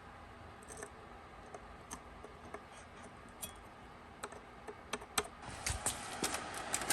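Faint, scattered light clicks and taps of small parts and tools being handled, coming more often toward the end.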